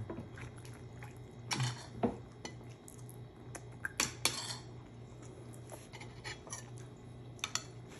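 Spoon clinking against a ceramic bowl and plates while eating: a handful of sharp, separate clicks and taps.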